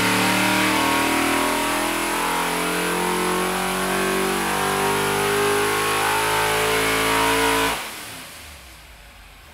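A 400-cubic-inch Ford Cleveland V8 race engine running loud and steady on an engine dyno. It shuts off sharply near the end, and the sound dies away.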